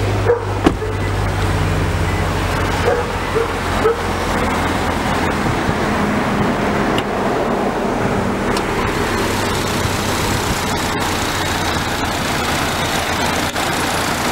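Steady car and road-traffic noise, with a low hum that fades after about four seconds and two sharp clicks right at the start.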